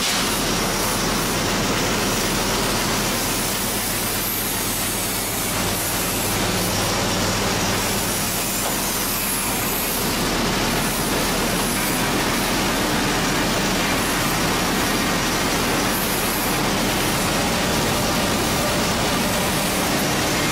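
Commercial stainless-steel nut chopping machine running while chopping nuts: a steady, even noise over a low electric-motor hum.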